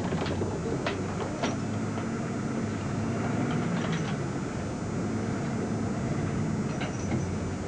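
An engine running steadily with a low hum, with a few sharp knocks and clanks over it: about a second in, again shortly after, and near the end.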